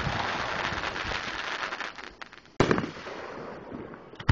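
Aerial fireworks shells bursting: a sharp boom right at the start, followed by about two seconds of dense small pops. A second boom comes about two and a half seconds in, and a third sharp bang near the end.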